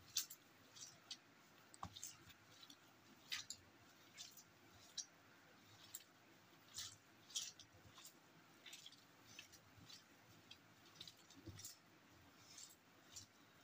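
Faint, irregular soft squishes and clicks of a hand kneading raw minced meat in a stainless steel bowl.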